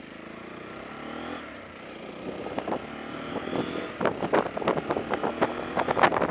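Sinnis Terrain motorcycle engine pulling away, its note rising. As speed builds, gusty wind buffets the microphone, and from about four seconds in this is the loudest sound.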